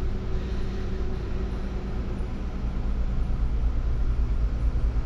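Car engine idling, a steady low hum with a few fixed low tones, heard from inside the car.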